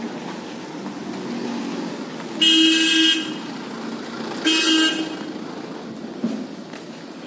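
A vehicle horn honks twice: a blast of about a second, then a shorter one about a second later, over a steady hum of street traffic.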